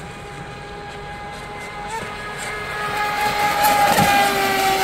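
Proboat Super Sonic Wake 48 RC boat's brushless electric motor whining at speed. It grows louder as the boat passes close by about four seconds in, then its pitch falls as it moves away, over the hiss of its spray.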